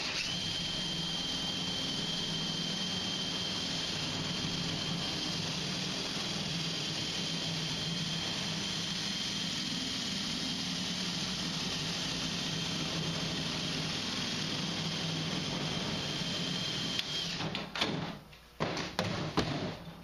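Cordless drill driving a sheet-metal cutting attachment, slicing steadily through the sheet-steel side panel of a furnace cabinet: a continuous run with a steady high motor whine. It stops about three seconds before the end, followed by a few knocks and rattles of sheet metal as the cut-out panel is lifted away.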